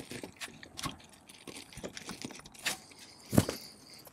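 Metallic clicks and rattles from a Grand Power Stribog SP9A3G 9mm carbine being worked by hand to clear a failure to feed: the Magpul magazine presents the round too low, so it hits the feed ramp. There is one louder clack about three and a half seconds in.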